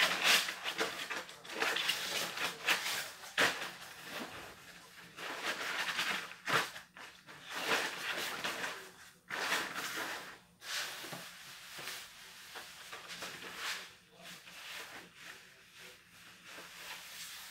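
Thin synthetic raincoat fabric rustling and crinkling in irregular bursts as the raincoats are lifted, turned over and smoothed out by hand.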